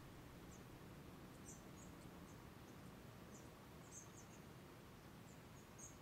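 Quiet open-air dawn ambience: faint, very short high-pitched chirps from small wildlife, birds or insects, coming irregularly about twice a second over a soft low background rumble.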